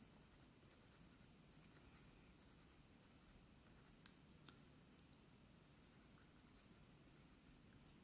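Faint scratching of a coloured pencil tip worked in small strokes on paper, blending in the highlights of a drawing, with a few light ticks about halfway through.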